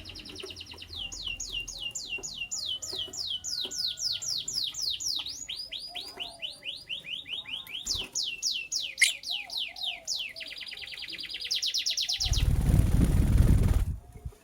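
Lovebird chirping: a long run of short, high, falling notes a few per second, quickening into a fast trill. Near the end the chirping stops and a loud burst of rushing noise, the loudest sound here, lasts about two seconds.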